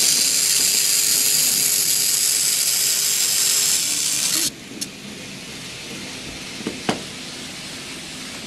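N-gauge model turntable's drive running with a steady, high whirring hiss while the bridge rotates, stopping abruptly about four and a half seconds in. A few light clicks follow.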